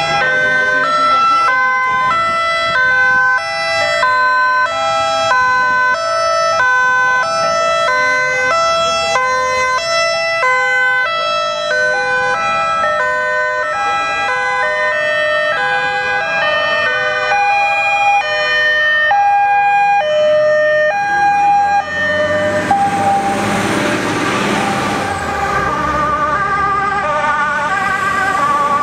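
Several fire engines' two-tone sirens sounding at once, each stepping back and forth between a high and a low note, overlapping out of step. About two-thirds of the way through, engine and road noise swell loudly as a fire engine passes close by.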